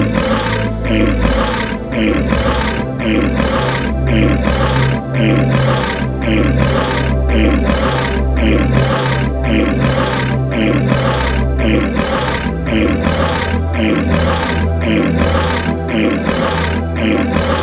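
An animal's rough roaring calls repeated about twice a second, each dropping in pitch, over background music with sustained low tones.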